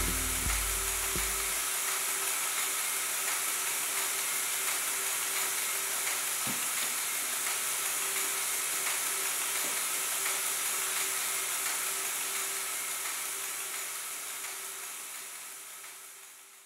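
Closing stretch of an experimental electronic sound piece. A deep drone stops about two seconds in, leaving a steady crackling hiss with a faint hum that fades out near the end.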